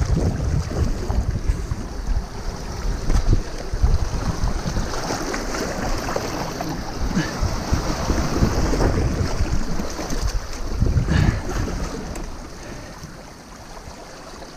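Wind buffeting the microphone over the wash of sea waves on the shore, with gusty low rumbling that eases off near the end.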